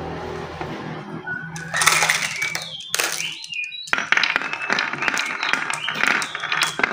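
Marbles rattling in a hand, then rolling down a wooden wavy-groove marble run and clicking sharply against the wood and each other as they pile up, many quick clicks in the second half. Birds chirp briefly in the background.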